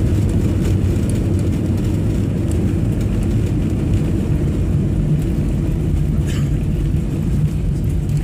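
Airliner cabin noise while rolling along the runway: a steady low rumble of the engines and the wheels on the concrete.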